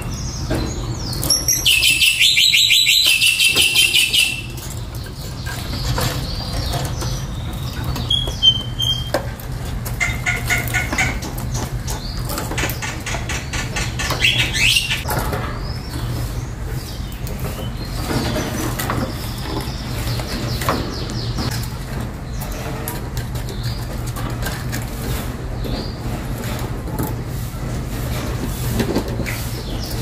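Caged lovebirds, a Fischer's lovebird and a pale blue mutation, chattering and fluttering their wings. A loud burst of shrill, rapid chattering comes a couple of seconds in, followed by scattered shorter chirps and wing flaps over a steady low hum.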